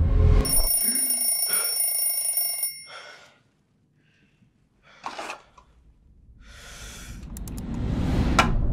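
A high, bell-like ringing for about two and a half seconds, then near silence with a short burst about five seconds in, then a steadily swelling rise that ends in a sharp hit near the end.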